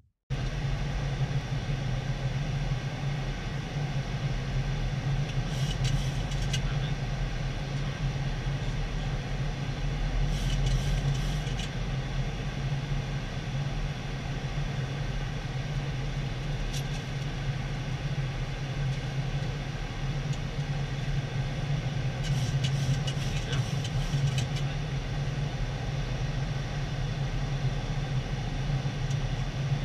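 Steady cockpit noise of a Boeing 737 in flight on approach: airflow and engine noise with a strong low drone. It cuts in suddenly just after the start, and short spells of faint high clicking come a few times.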